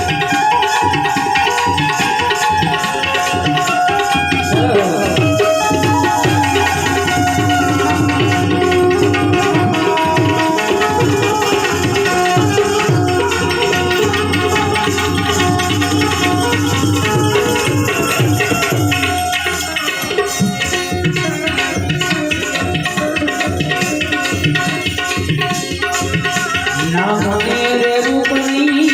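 Instrumental interlude of a Gujarati bhajan: tabla playing a steady, busy rhythm under sustained harmonium notes.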